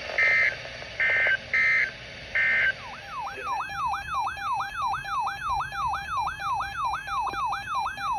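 Emergency Alert System broadcast audio: four short bursts of two-tone digital data warble in the first few seconds, like SAME header or end-of-message codes. Then comes an electronic alert tone that sweeps rapidly upward over and over, about two to three times a second, above a steady tone.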